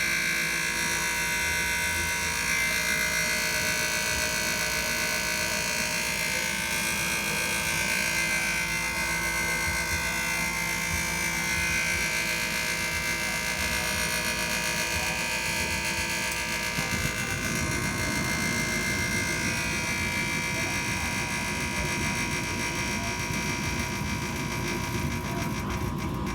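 Furnace on startup making a steady scraping buzz with several held whining pitches; about two-thirds of the way through a lower, rougher noise joins in. An unexplained fault, typically heard only with the furnace door closed.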